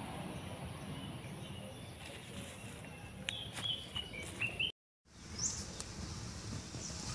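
Outdoor ambience: a steady low background rumble with a few short, high bird chirps, mostly in the second half. The sound drops out completely for a moment about five seconds in.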